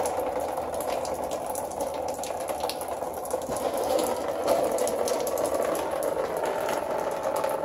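Water pouring and dripping out of the 2012 Scion xD's AC evaporator condensation drain and splashing into a drain pan below, with a steady hum running underneath. The water had backed up in the dash because the drain was plugged, the cause of the sloshing noise and the vapor from the vents.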